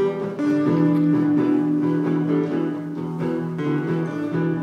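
Acoustic folk-rock band playing an instrumental passage between sung lines: guitar accompaniment with a long held note laid over it.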